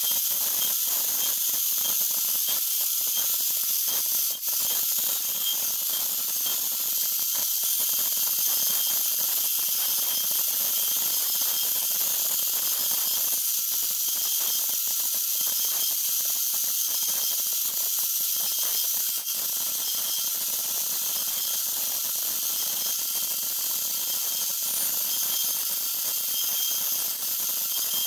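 CNC router spindle running at a steady high-pitched whine as its end mill cuts into a plastic sheet, with a steady hiss of cutting beneath; the sound dips briefly twice.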